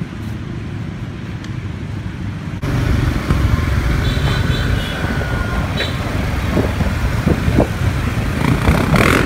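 Street traffic rumble, then, from about two and a half seconds in, the louder rush of riding pillion on a motorbike taxi through city traffic: the scooter's engine, wind and the motorbikes and cars around it, with a few short beeps.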